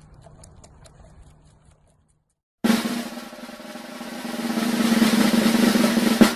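A drum roll, coming in about two and a half seconds in after a short silence, swelling steadily louder and cutting off abruptly just before the end. Before it there is only faint sound.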